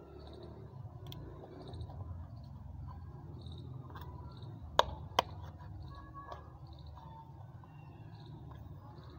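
Hands handling a plastic Harpic toilet-cleaner bottle and its nozzle cap, with two sharp plastic clicks close together about five seconds in over a low steady hum.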